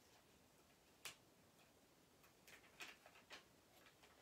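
Near silence with a few faint ticks and crinkles of a thin plastic vinyl cover sheet being picked at and peeled by hand: one about a second in, then several more in the second half.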